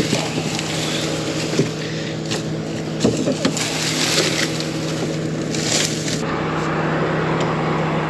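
Combine harvester running, a steady engine hum under a rushing, rattling noise from the machinery. The rushing changes and thins about six seconds in.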